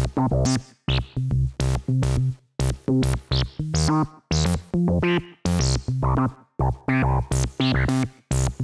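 Electronic background music with a steady drum-machine beat and synthesizer.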